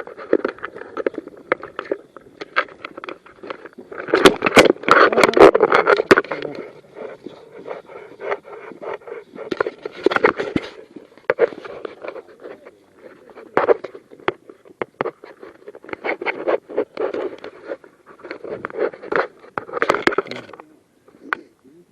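Close rustling, scraping and knocking of a player's clothing and gear rubbing against the microphone as he moves about, with many sharp clicks, busiest about four to six seconds in, again around ten seconds and near the end.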